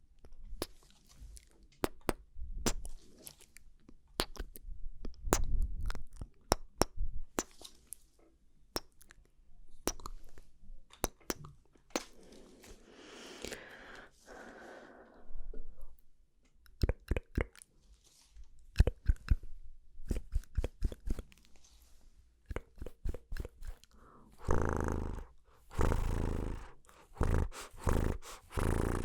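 ASMR mouth sounds close to the microphone: many sharp, wet clicks and smacks of tongue and lips, with longer breathy stretches about halfway through and again near the end.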